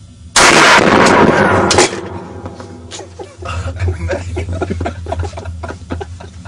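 Gunfire about a third of a second in, so loud that it overloads the recording for about a second and a half, followed by a scatter of smaller knocks.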